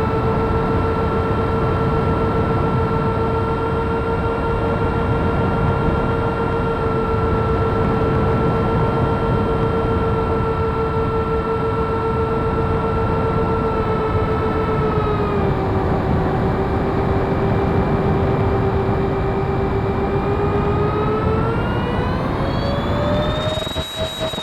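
Twin 70 mm six-blade electric ducted fans whining in flight over a steady rush of air. The whine holds one pitch, drops a little about two-thirds of the way through, then climbs sharply near the end.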